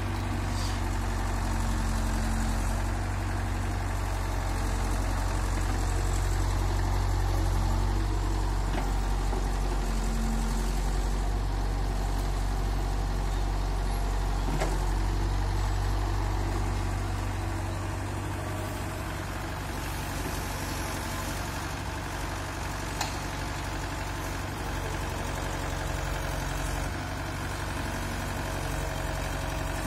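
Diesel engines running steadily: a Hitachi UH025 tracked excavator working its arm and bucket, with a tractor idling beside it. The low drone eases a little about halfway through.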